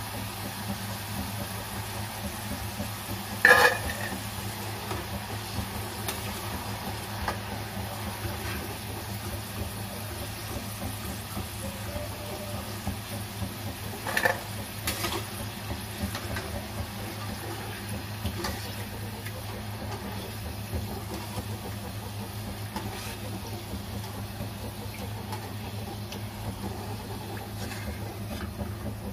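Potato fries sizzling in hot oil in a kadhai during their second, crisping fry, over a steady low hum. Sharp metal clinks of a slotted steel spoon against the pan stand out about three and a half seconds in and again about fourteen seconds in.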